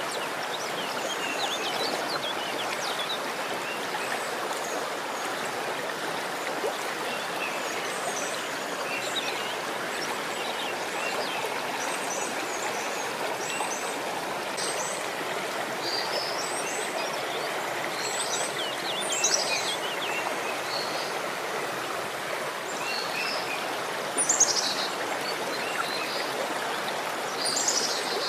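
Steady rushing of running water, with small birds chirping over it and a few louder, quickly falling calls in the second half.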